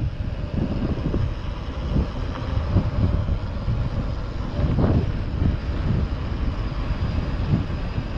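Wind buffeting the camera microphone over the rumble of a mountain bike's tyres rolling on asphalt, with irregular gusts and bumps.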